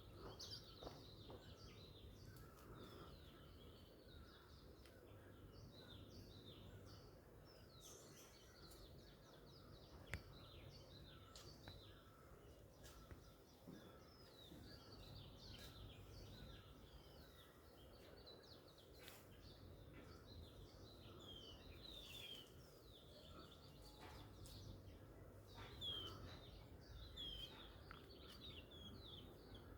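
Faint, busy chorus of small birds chirping, many short calls overlapping one another throughout, over a steady low background rumble.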